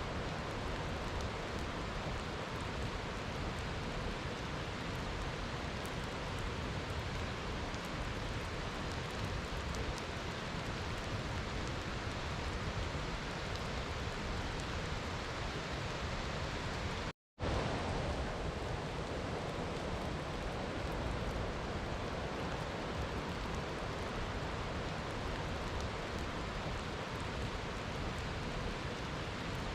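Steady rainfall, a dense even hiss without separate drops standing out. A little past halfway it cuts to silence for a split second, then carries on unchanged.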